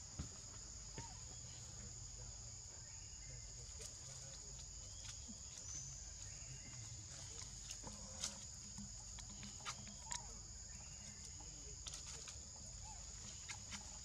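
Steady high-pitched insect chorus, two unbroken tones, with scattered sharp clicks and taps and a few faint short chirps over it.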